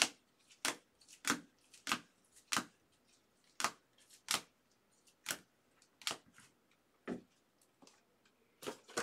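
Rigid plastic trading-card holders clicking against one another as a stack is flipped through one card at a time: about a dozen sharp clicks, one every half second to a second.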